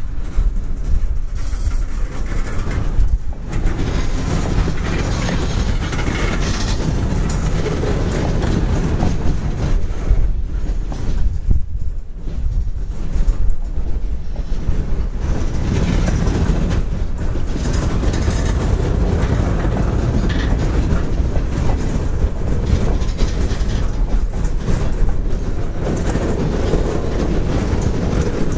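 Freight cars (covered hoppers and centerbeam flatcars) rolling past close by: a steady low rumble of steel wheels on rail, broken by repeated clicks as the wheels cross the rail joints.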